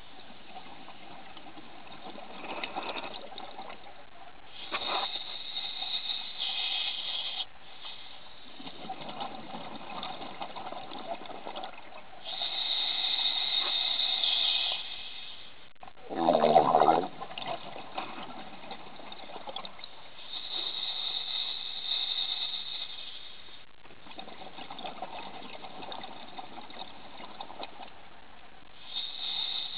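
Scuba diver breathing through a regulator underwater, about every eight seconds: a hissing inhale of two to three seconds, then a burble of exhaled bubbles. The bubble burst about sixteen seconds in is the loudest.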